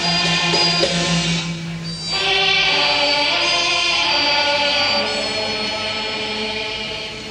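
Teochew opera music: voices singing over the traditional instrumental accompaniment. A new phrase begins about two seconds in.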